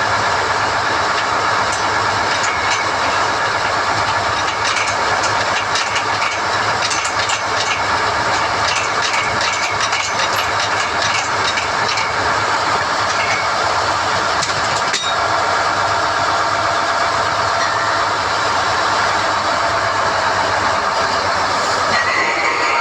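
SDH-1600 core drilling rig running steadily under load as NQ drill rods are hoisted out of the hole, with light metallic clicks and clinks of the rods and tooling in the middle.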